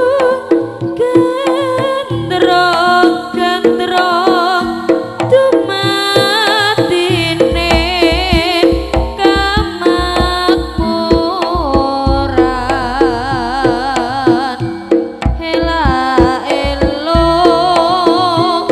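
Javanese jaranan ensemble music: quick kendang hand-drum strokes under a wavering, sustained high melody line.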